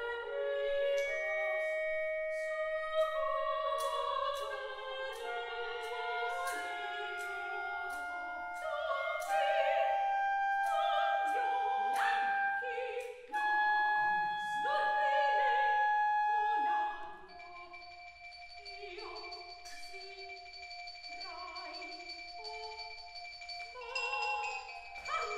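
Contemporary chamber music for two sopranos, clarinet and percussion: the sopranos sing clipped nonsense syllables over held clarinet notes, with sharp percussive taps and bell-like mallet notes. About two-thirds of the way through the music drops to a softer passage of held tones.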